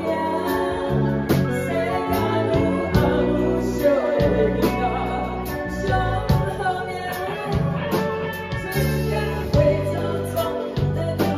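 Music with singing over instruments and sustained bass notes.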